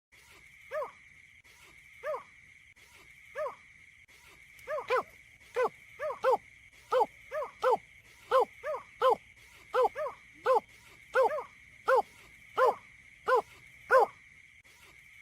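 A marsh bird's short pitched calls, repeated: a few calls spaced over a second apart, then from about four seconds in quickening to nearly two a second. A steady high whine runs under them.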